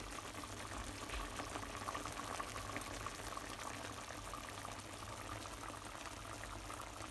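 Fish broth simmering in an open frying pan, bubbling and popping steadily, with a low steady hum underneath. The sea bream in it is almost cooked.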